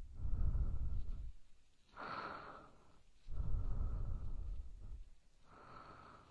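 Close-miked ASMR breathing in the ear: slow, drawn-out breaths, about four in turn. Louder breaths with a deep rumble of air on the microphone alternate with softer, airier ones, separated by short pauses.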